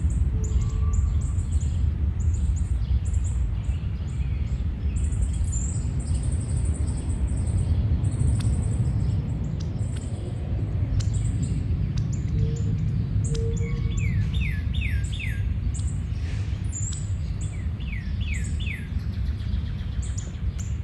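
Songbirds chirping in many short high notes, with a run of four falling whistles sung twice in the second half, over a steady low rumble.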